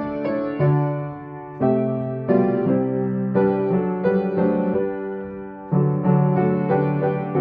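Piano playing a slow hymn accompaniment in full chords, each chord struck and left to ring before the next.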